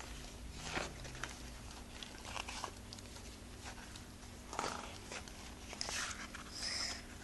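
Soft, scattered rustles and swishes of paper and cardboard as a colouring book and its cover are handled and its pages moved, over a low steady hum.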